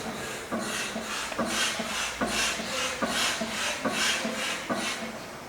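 Rhythmic scraping strokes, about two a second, with a soft knock about once a second.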